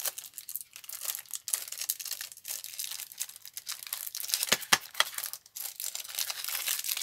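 Thin clear plastic wrapping crinkling and rustling as it is handled and peeled off a diamond-painting stylus pen in its plastic tube, with a couple of sharp plastic clicks a little past the middle.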